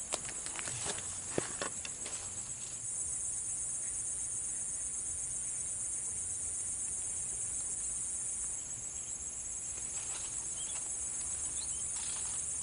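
Chorus of insects trilling, a steady high shrill pulsing, with a second, louder insect joining from about three seconds in and stopping about eight and a half seconds in. A few faint clicks near the start.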